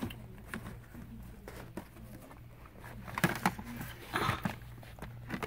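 Cardboard shoebox being pulled off a store shelf and handled: scattered light clicks, knocks and rustles, busiest about three to four and a half seconds in, over a steady low hum.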